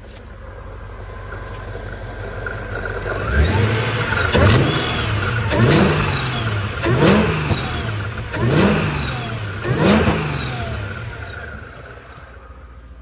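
Mercedes E55 AMG's supercharged M113K V8 revved in five quick blips, each with a high whine that climbs and falls with the revs. The engine then settles back toward idle near the end.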